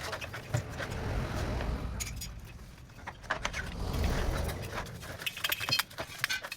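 Metal tools and hydraulic jack parts clinking and scraping in a run of short, irregular knocks over a low rumble.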